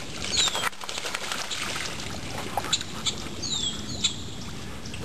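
A bird's high whistled calls, each sliding down in pitch: one near the start, then two in quick succession about three and a half seconds in. Scattered short ticks run over a steady background noise.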